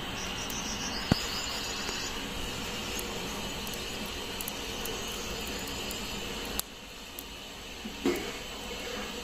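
Steady outdoor background hiss with insects buzzing, and a single sharp click about a second in; the background drops off suddenly about two-thirds of the way through.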